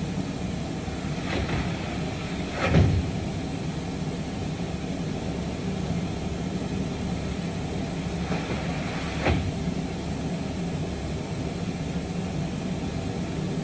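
Steady hum of woodshop machinery, with two louder knocks, about three seconds in and again about nine seconds in, as sheets are handled at the machine.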